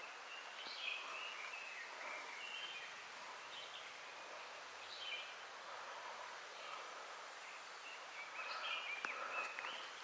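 Outdoor forest ambience: steady background noise with scattered short bird chirps.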